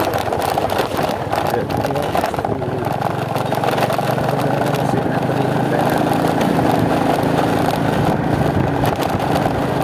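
Motor scooter ridden along a road, its engine running steadily under a rush of wind noise on the microphone; the engine hum settles into a steady tone about three seconds in.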